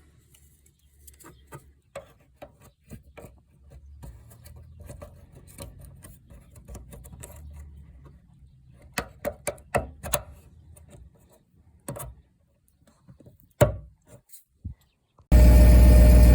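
Scattered light clicks, knocks and rubbing, with a faint low rumble through the middle; near the end a loud, steady mechanical hum cuts in suddenly.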